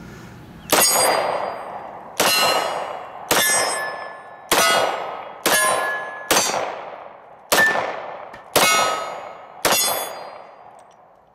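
Glock 22 .40 calibre pistol fired nine times at roughly one-second intervals, each shot followed by the ringing clang of the steel target it hits.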